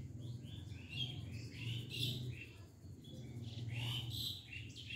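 Small birds chirping: many quick, high chirps in two busy spells, over a low steady hum.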